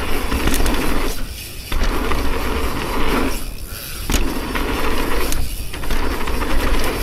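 Mountain bike running fast down a dirt jump trail: tyre roar on hardpack, the bike's chain and frame rattling, and wind on the camera. The rolling noise thins out briefly three times, about two seconds apart, as the wheels leave the ground over the jumps.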